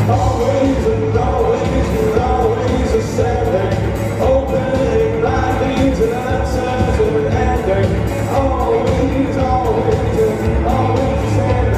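Rock band playing live: a sung lead vocal over electric guitars, synth keyboards, bass and a drum kit.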